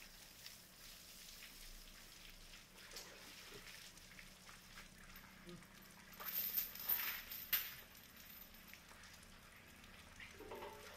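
Water trickling and splashing in a muddy puddle around an elephant being bathed, with a louder stretch of scraping and a sharp metal clink about six to seven and a half seconds in as the elephant's leg chain and a metal bucket are handled.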